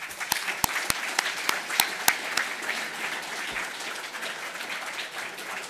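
Audience applauding, with a few close, sharp claps standing out in the first two seconds, then easing off near the end.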